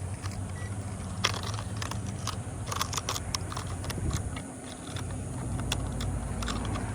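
Irregular small clicks and rattles of handling while a caught fish is hooked onto a scale to be weighed, over a low steady rumble.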